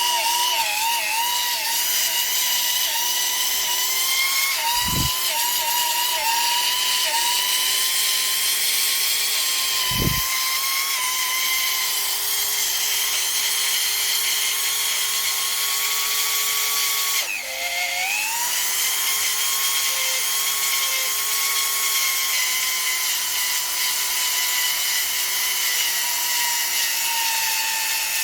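Corded rotary tool motor running at high speed with a steady whine. About 17 seconds in its pitch dips briefly and then climbs back. Two dull thumps come about 5 and 10 seconds in.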